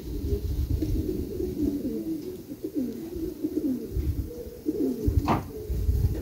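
Many racing pigeons cooing at the loft at once, their overlapping low coos running on continuously. Low gusty rumbles come and go under them, and a single short sharp sound cuts in about five seconds in.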